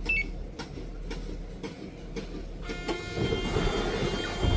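Hyundai County minibus's powered sliding middle door closing on a remote-control command. A short beep and a few evenly spaced clicks come first, then a mechanical whir builds for about two seconds and ends in a thud as the door shuts.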